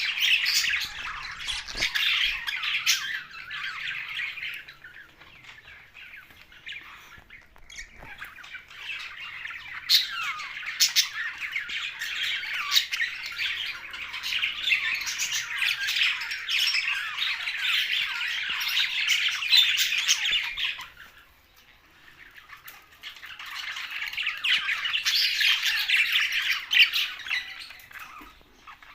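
A group of budgerigars chattering and warbling continuously, a dense mix of chirps and squawks, dropping off briefly about three-quarters of the way through before picking up again.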